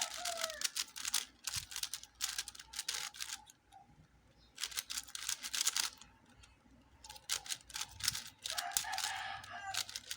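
Shengshou Legend 4x4 plastic speedcube being turned rapidly during a solve: fast runs of clicking and clacking layer turns, with short pauses between runs.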